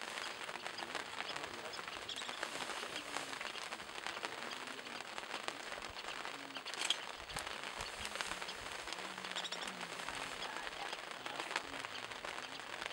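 Steady patter of rain, a dense even crackle with scattered sharper drops.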